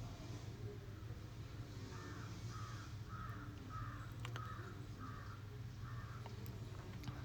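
A crow cawing in the background: a run of about seven caws evenly spaced about half a second apart, over a faint steady low hum, with a couple of sharp clicks.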